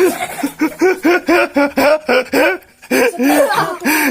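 A person laughing hard in a rapid run of short pitched 'ha' pulses, about four a second, with a short break about two-thirds of the way through before the laughing picks up again.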